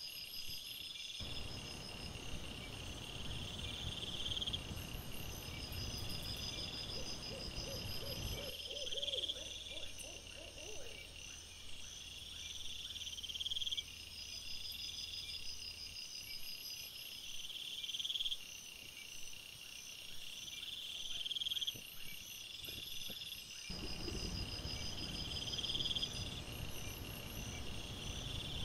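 Crickets chirping at night in high, pulsed trills that repeat about every second and a half, over a low hiss that changes abruptly several times.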